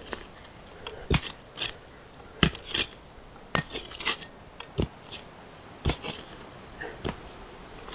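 Folding shovel chopping and scraping into the forest floor: irregular sharp strikes, about one a second, each with a short scrape of the blade through the soil.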